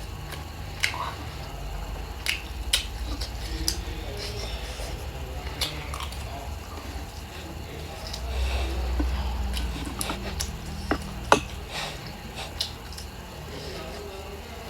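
Close-up chewing and mouth sounds of someone eating dried fish with rice, with scattered sharp clicks of utensils against a dish.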